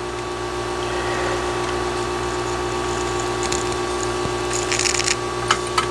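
Steady hum of a small electric motor running, with a few fixed tones in it. Near the end comes a brief crinkle of handled paper and wire, followed by a couple of light clicks.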